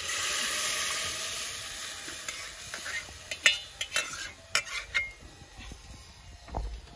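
A soupy grain mixture pouring and splashing from one aluminium bowl into another set over a wood fire, making a steady hiss that fades over the first two seconds or so. Then comes a run of sharp metal clinks as a spoon and the bowl rims knock together, and a dull knock near the end.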